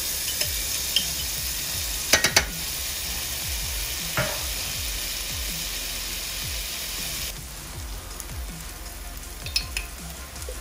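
Chopped onions and garlic sizzling in hot ghee in a stainless steel pan, with a dollop of ginger paste just added. A few sharp taps of a utensil against the pan come about two seconds in, one more about four seconds in and a few near the end. The sizzle turns quieter about seven seconds in.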